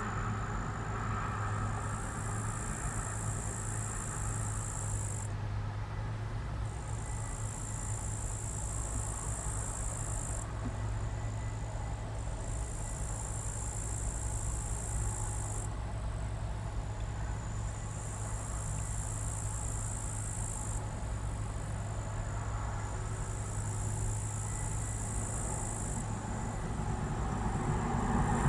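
New Holland CX860 combine harvester running steadily at work with a low, even hum. High-pitched insects buzz over it in spells of three or four seconds with short gaps between.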